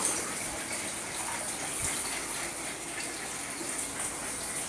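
Steady splashing of a stream of water pouring into a small pool from a return jet in the pool wall.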